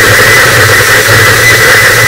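Harsh noise wall: a loud, unchanging wall of dense static with a low steady hum underneath and a thin steady whine high above it.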